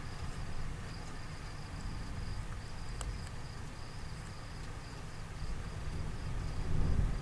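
Crickets chirping in a steady rhythm, over a low rumble that swells near the end.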